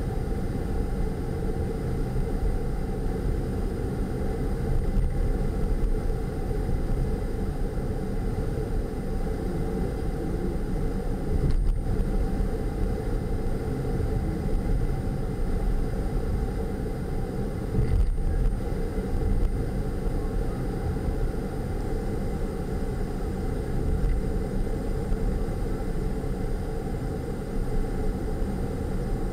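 Steady road and engine noise of a car driving on city streets, heard from inside the cabin.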